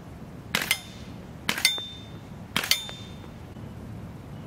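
Three shots, about a second apart, from an AR-15 rifle converted with a UTM bolt carrier group to fire 5.56 mm Man Marker marking rounds. Each shot is followed a split second later by the short metallic ring of the round striking a steel plate target.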